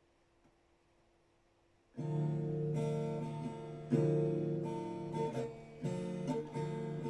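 Near silence for about two seconds, then an acoustic guitar starts strumming chords, the introduction before the singing comes in.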